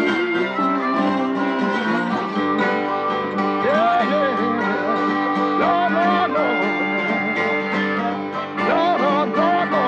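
Background country-style music with plucked guitar.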